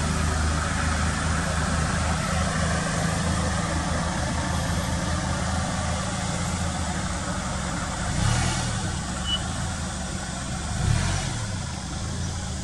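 Motor vehicle engine running steadily with a low hum that fades over the first few seconds, over steady outdoor hiss; the engine note swells and falls away twice near the end.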